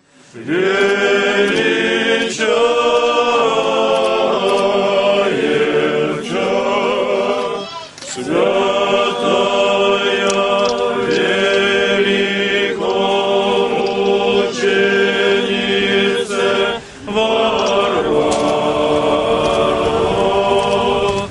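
Orthodox church choir singing unaccompanied chant in sustained chords, with short breaks between phrases about 8 s and 17 s in.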